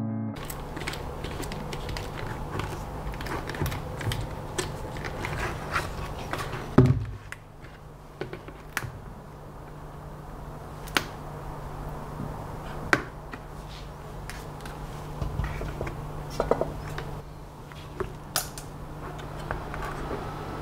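Hands working inside a plastic bucket, pressing an LED strip into place and handling its wires: scattered clicks and plastic knocks, the loudest a thump about seven seconds in, over a steady low hum.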